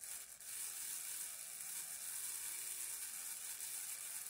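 The small X500 motor of a Tri-ang Stephenson's Rocket model locomotive runs on a battery held directly to its brushes, whirring steadily with its gears and wheels turning. It starts about half a second in. This is a bench test after the field magnet has been remagnetised. The running is lumpy because the battery contacts shift the brushes.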